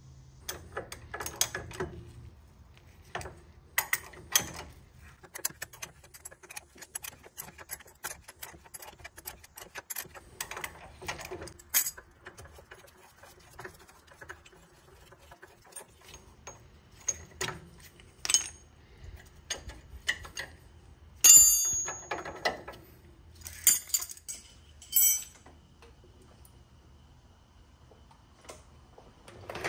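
Scattered metallic clicks and clinks of a rusty steel bushing retainer, rubber leaf spring link bushings and the threaded link bolt being handled and fitted at the end of a Corvette rear leaf spring. A sharp ringing clink about two-thirds of the way through is the loudest.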